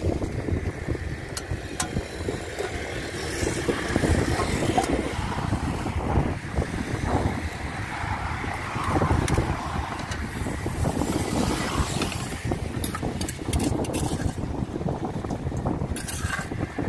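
Road traffic passing close by, a fluctuating low rumble, with a few light clicks near the end from a spoon against a clay mortar.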